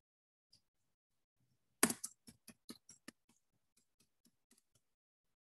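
Computer keyboard keys being typed: a quick run of clicks starting about two seconds in, the first ones loudest, then fainter scattered taps.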